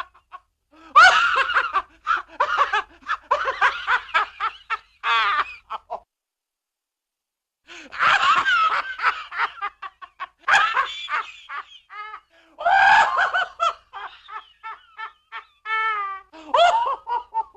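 Cartoon laugh sound effects: several different laughs and snickers one after another, with a silence of about a second and a half around six seconds in. Near the end comes a quick run of short, repeated high 'ha' pulses.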